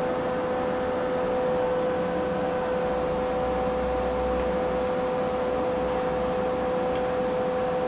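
Steady electrical hum with two constant pitched tones from the CNC mill's energised axis motors and drives, the table holding still between incremental jog moves. A faint low rumble comes in about three seconds in and fades a couple of seconds later.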